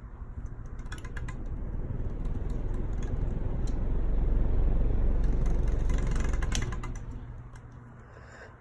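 Casablanca Verde Nouvelle ceiling fan running in reverse. Its airflow buffets the microphone in a low rumble that builds over about four seconds and dies away near seven seconds, over a steady motor hum, with scattered light clicks.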